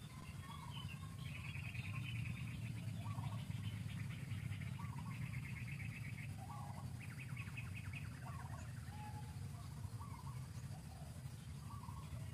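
Wild birds calling: short chirps about once a second, with stretches of fast trilling, over a steady low rumble.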